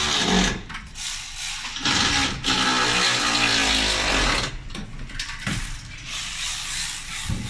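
Mechanical rattling and whirring from tire-shop equipment, in two long runs with a short break between them.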